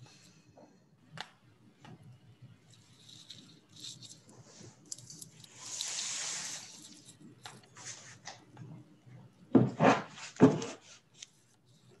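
Faint clicks and rustles over an open microphone, a soft hiss about six seconds in, and a brief cluster of louder bumps near the end.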